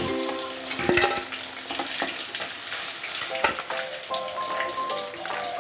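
Tilapia pieces sizzling in hot oil in a metal wok, with a few sharp clicks as a spatula knocks and scrapes against the pan while fried pieces are lifted out.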